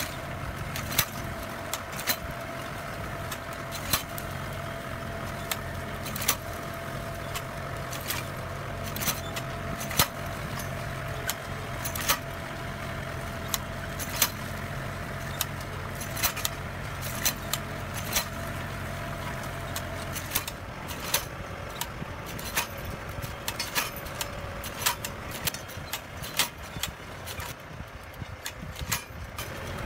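Tractor engine running steadily while its side-mounted blade hoe works the vineyard soil, with frequent sharp clicks and knocks throughout. The engine hum fades in the last few seconds.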